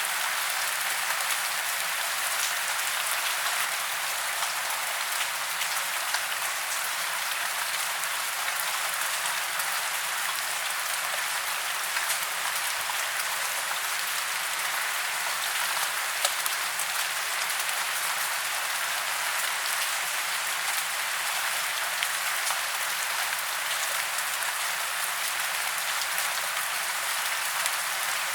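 Steady rain falling on tree branches and leaves: a dense, even hiss of drops, with small individual drop ticks scattered through it.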